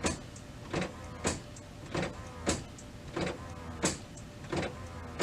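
HP OfficeJet Pro 7740 inkjet printer initializing after fresh ink cartridges are installed: its motor whirs under a regular clack about every two-thirds of a second as it primes ink through the print head.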